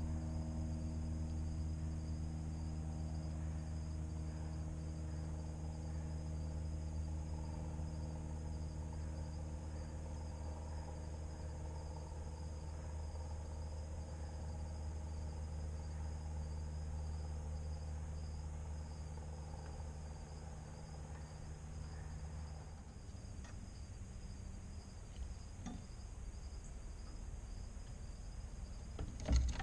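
Steady high-pitched chorus of evening insects such as crickets, over a low steady machine-like hum that cuts off about three quarters of the way through. A few faint clicks follow, then a brief loud knocking near the end.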